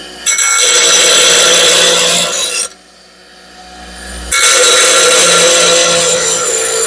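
Steel lawnmower blade being sharpened against a spinning grinding wheel, in two grinding passes. A harsh, loud grinding noise breaks off for about a second and a half near the middle, leaving only the low hum of the motor, then resumes.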